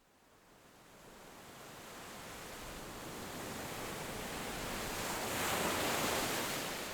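Ocean waves washing on a shore: a rushing surf that fades in from silence, swells to a peak about five to six seconds in, then eases off.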